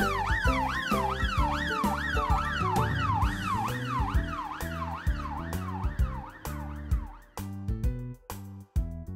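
Police car siren wailing in a fast yelp, rising and falling about three times a second and fading out about six seconds in, over children's background music with a steady beat.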